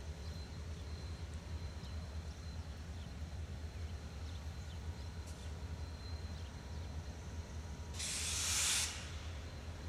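Diesel locomotives running slowly with a steady low rumble, and a loud burst of compressed-air hiss lasting about a second, about eight seconds in.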